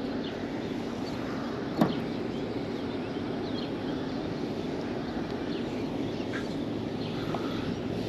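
Steady outdoor noise of wind and water, with a few faint bird chirps and one sharp knock about two seconds in.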